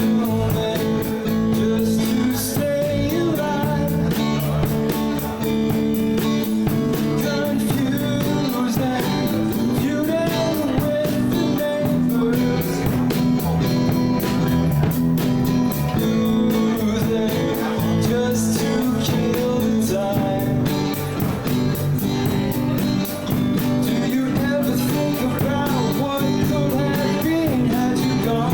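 Live rock band playing a blues-rock song: electric guitar, bass and drums, with a sung vocal.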